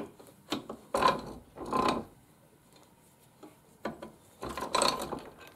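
A socket ratchet wrench clicking in three short runs, with a sharp click at the start, as the bolt on a bandsaw blade-guide bearing holder is tightened back together.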